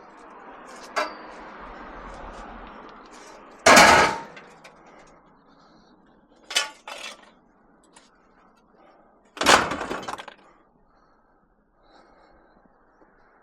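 Scrap metal being loaded onto a truck, clanging down. There are two loud crashes, about four and ten seconds in, and a lighter clank between them.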